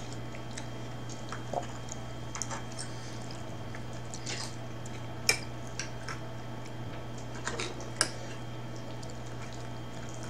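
Chewing and mouth sounds of someone eating, with a handful of sharp scattered clicks of a metal fork against a plate, over a steady low hum.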